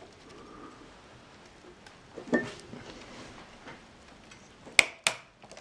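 Hands handling parts of an open-air PC case: faint fumbling, then two sharp clicks about a third of a second apart near the end.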